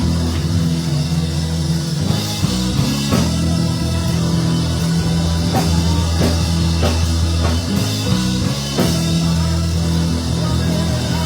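Band music with a drum kit: held low bass notes and chords that change every second or two, under regular drum and cymbal hits.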